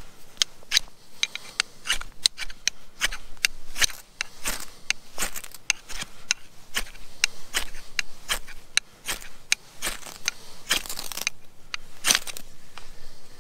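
An XXL ferrocerium rod struck over and over with the spine of a bushcraft knife: quick, sharp scraping strokes at about one or two a second, with one longer scrape near the end, each strike showering sparks onto wood shavings to light a fire.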